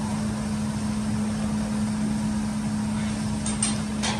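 Food sizzling on a steel teppanyaki griddle under a steady low hum. Near the end come about three sharp metal clinks of a spatula on the griddle.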